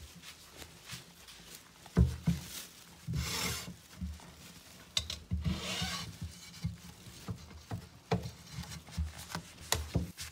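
Close handling noise of a phone rubbing and bumping against wooden boards: irregular scraping and knocks, with two longer scrapes about three and five and a half seconds in.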